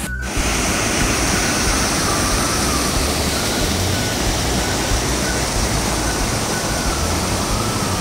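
Small waterfall and rapids rushing over rock ledges: a steady, loud rush of falling and churning water.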